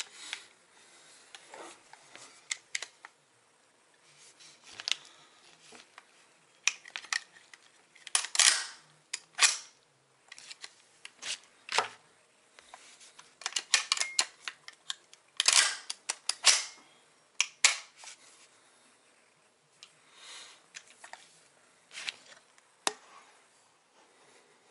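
Henry pump-action .22 LR rifle being worked by hand: the slide racked back and forth in a series of sharp metallic clacks, often in quick pairs, with fainter clicks of the action between and pauses in between strokes.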